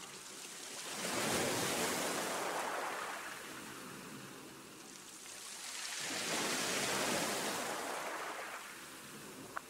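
Ocean waves washing in and drawing back, twice, each a slow swell of hissing surf that fades away.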